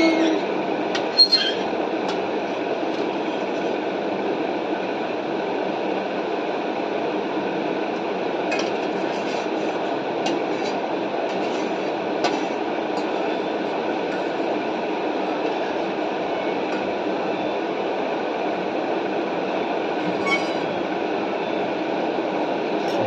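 A steady rushing background noise runs unbroken, and a few faint clinks of a fork against a steel plate sound now and then.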